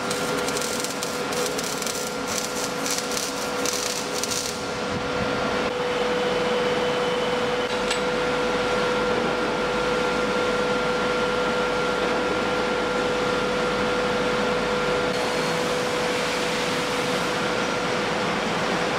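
Steady workshop machine noise, a hiss carrying a constant hum tone, with a fine crackling over it for the first four or five seconds.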